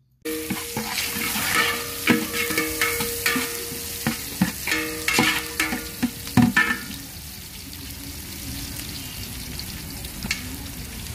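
Sliced onions sizzling in plenty of hot oil in a large aluminium pot, being sautéed over a wood fire. A long metal ladle stirs them, scraping and knocking against the pot repeatedly for the first six or seven seconds, after which the sizzle goes on alone.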